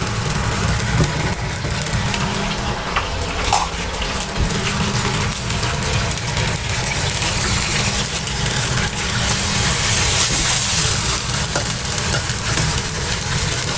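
Fish belly frying in hot oil in a wok: a steady, loud sizzle, with a few light knocks and scrapes of a metal ladle and spatula against the pan, over a steady low rumble.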